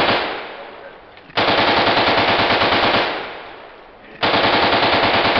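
Simulated machine-gun fire in rapid bursts, about ten shots a second. Each burst lasts about a second and a half and trails off in an echo. One burst is dying away at the start, and new ones begin about a second and a half in and about four seconds in.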